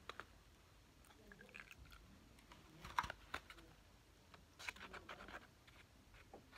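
Near silence broken by a few faint clicks and scrapes, the sharpest about three seconds in: a plastic spoon knocking and scraping in a plastic tub as slime is stirred.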